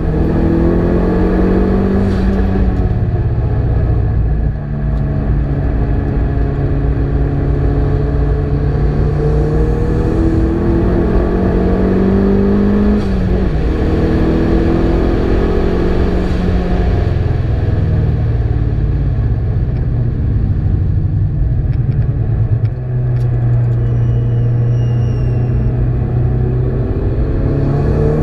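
Ford Focus RS engine under hard acceleration, heard from inside the cabin. The revs climb steadily and drop back sharply at each of several gear changes.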